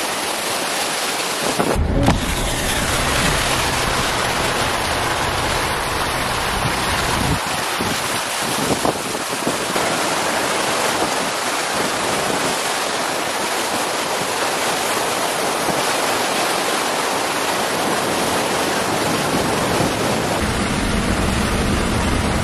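Steady rush of floodwater pouring across a road and spraying up from the wheels of a 4x4 driving through it, with a low rumble of the vehicle and wind on the microphone that changes a few times.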